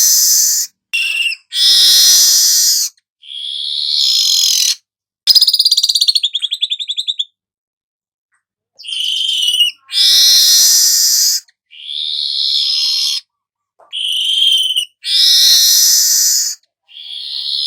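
Weaver (manyar kepala emas) song: harsh, hissing, buzzy phrases about a second long, repeated with short gaps, and one fast rattling trill about a third of the way through.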